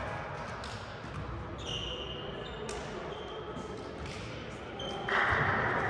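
Basketball bouncing on a gym floor, with short sneaker squeaks and voices echoing in the hall. The noise rises sharply about five seconds in.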